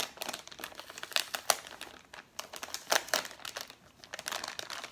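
Plastic packaging crinkling and rustling in the hands as a squishy toy is taken out of it, in irregular crackles that are loudest about one and three seconds in.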